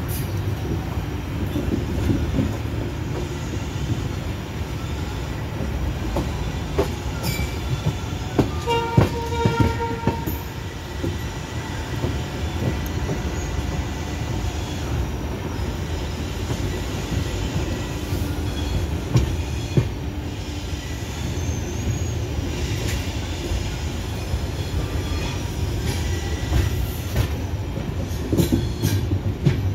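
Passenger train heard from on board, its wheels rumbling steadily over the rails, with scattered clacks over rail joints and points. About nine seconds in a wheel squeals briefly in a few high tones.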